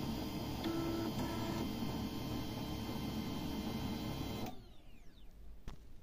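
Canon i-SENSYS MF232w laser printer running its start-up warm-up cycle: a steady mechanical whirr with faint whining tones that cuts off suddenly about four and a half seconds in, as the machine comes to ready.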